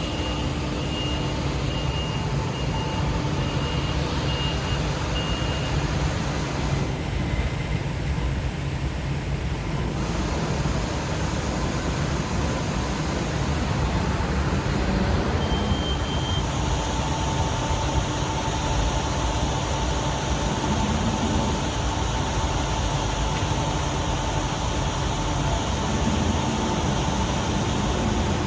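Merlo telehandler's diesel engine running steadily, with its reversing alarm beeping repeatedly for the first six seconds or so. A steady whine joins the engine sound a little past halfway.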